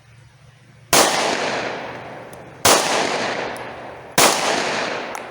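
Three 9mm shots from a Glock 43X subcompact pistol, about a second and a half apart, each echoing out. They are fired limp-wristed to provoke a malfunction, and the string ends in a failure.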